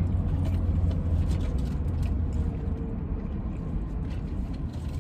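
Low, steady rumble of a car engine idling, heard from inside the car's cabin, with a few faint small clicks.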